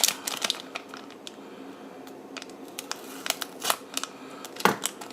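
Plastic minifigure blind-bag packet crinkling as it is opened and handled, with irregular sharp clicks and crackles.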